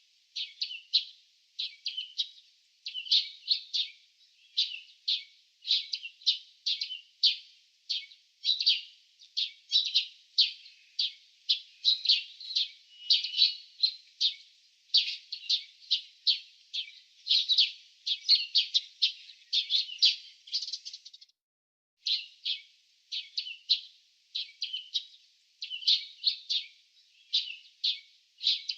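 Small birds chirping: a steady stream of short, high chirps, several a second, with a brief pause about three-quarters of the way through.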